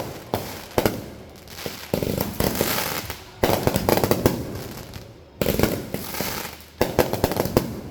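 Consumer fireworks going off: sharp bangs and loud crackling bursts, four of them in quick succession, each fading away over about a second.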